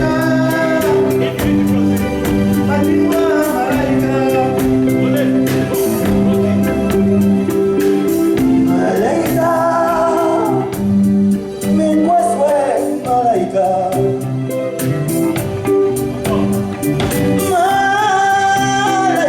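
Live band playing with a singer, over sustained bass and chords and a steady beat of percussion strikes.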